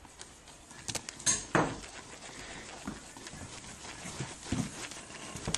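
Kittens scrambling and batting at loose cables: scattered light taps and clicks, with a louder clatter about a second and a half in.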